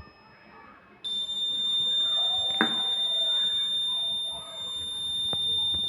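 Buzzer of a homemade rain-detector alarm starts sounding a steady high-pitched tone about a second in and keeps going, with a sharp click about halfway. It is the alarm set off by water bridging the two sensor blades.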